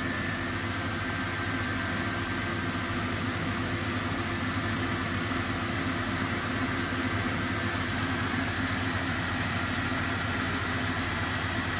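Haas CNC milling machine running steadily, its spindle turning a 16 mm end mill, a constant hum with a thin high whine over it.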